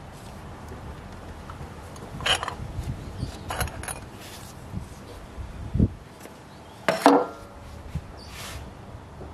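Thermostat housing being worked loose and pulled off the engine by hand: a few scattered clacks and knocks, the loudest about seven seconds in, with a dull thump just before six seconds.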